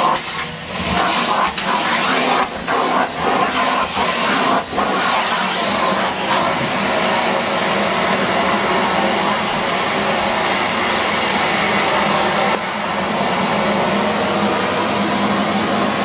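Numatic Henry 160 canister vacuum cleaner running, its hose and floor tool sucking on carpet. The sound dips briefly several times in the first few seconds, then holds steady.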